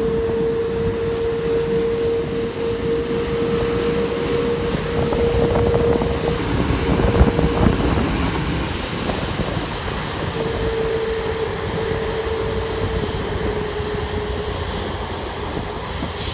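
Boeing 787 Dreamliner's jet engines running as the airliner rolls past on the ground: a steady rumble with a low whine through it, growing loudest about halfway through and then easing off.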